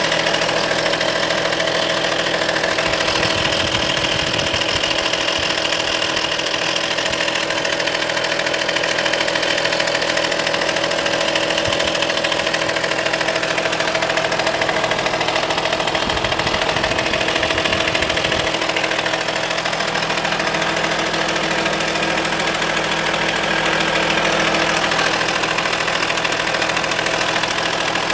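Audi A4 2.5 TDI V6 diesel engine idling steadily with an added noise, which the owner suspects may come from the accessory belt but is not sure. A deeper low rumble swells twice, about three seconds in and again about sixteen seconds in.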